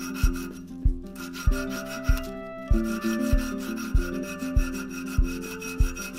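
A strip of abrasive cloth rubbed back and forth across the edges of a copper cross pendant, sanding it smooth, under background music with a steady beat a little under two a second.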